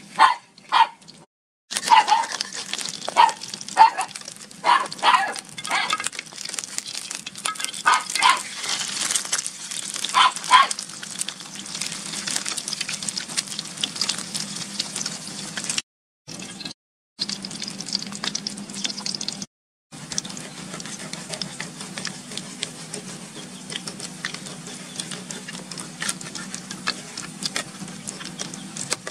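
Eggs sizzling in hot oil in a metal wok, a steady hiss. Over the first ten seconds about a dozen short animal calls come one after another, each under half a second. The sizzling is broken by a few brief dropouts a little past the middle.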